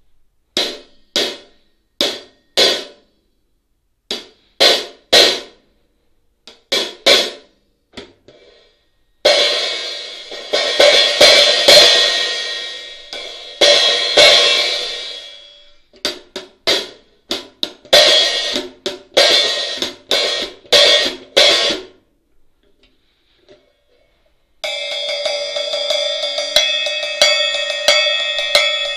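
13-inch Meinl custom Hurricane hi-hats, whose bottom cymbal has four vent holes, played with a drumstick. The first part is short separate hits in groups. Then come several seconds of loose, ringing open-hat wash and more short hits. After a brief pause, a steady, sustained ringing wash fills the last few seconds.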